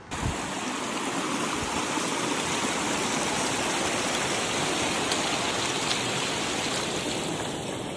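Shallow mountain stream rushing and splashing over rocks, a loud steady rush of water that starts abruptly.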